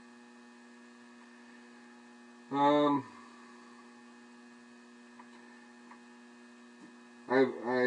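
Faint, steady electrical mains hum, a few even tones held throughout, with a short vocal sound about two and a half seconds in and a man's voice starting near the end.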